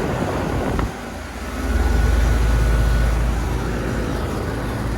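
Central air conditioner condenser units running: a steady fan and compressor hum that dips briefly about a second in, then comes back as a louder low rumble.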